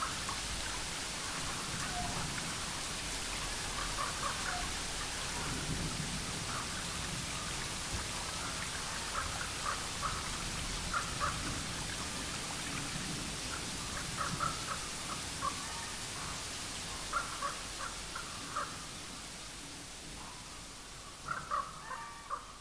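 Steady rain-like hiss with short bird calls scattered through it. The hiss fades down over the last few seconds, while a cluster of calls near the end stands out.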